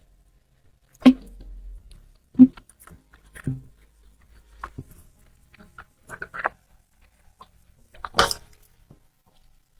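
A handful of separate knocks and clatters, as of objects being handled and set down on a hard surface, with quiet between; the loudest come about a second in, at two and a half seconds, and near eight seconds.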